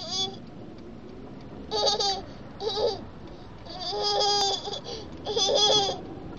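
A toddler laughing in about five short high-pitched bursts, the longest about four seconds in; it is the put-on, fake laughter that the title says he starts with.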